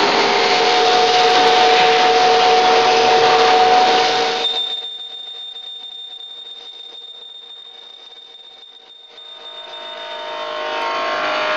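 Johnford TC35 CNC lathe running: a steady machine noise with a mix of humming tones. It drops much quieter about four and a half seconds in and builds back up from about nine seconds.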